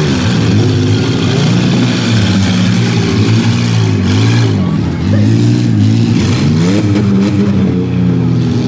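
Demolition-derby minivan engines revving hard and easing off again and again, their pitch rising and falling as the vans push against one another.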